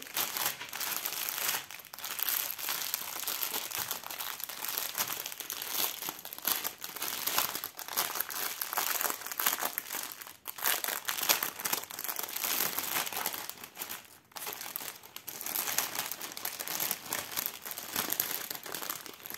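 Plastic packaging crinkling and rustling as hands rummage through a sleeve of small resealable bags of diamond-painting drills. Continuous crackle with two brief pauses, about ten and fourteen seconds in.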